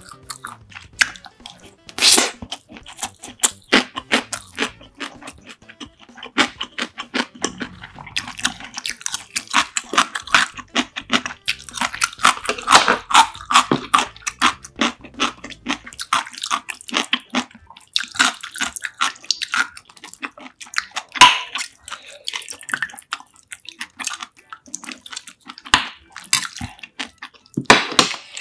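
Close-miked eating: wet chewing and mouth sounds of a person eating rice mixed with spicy chicken soup, with sharp clicks of a spoon and chopsticks against a ceramic bowl now and then, one near the start, one about two thirds through and one near the end.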